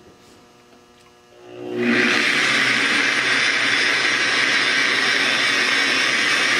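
Electric rotary polisher with a foam pad coming up to speed about a second and a half in, then running steadily as the pad buffs rubbing compound over the painted rudder skin to level the orange peel.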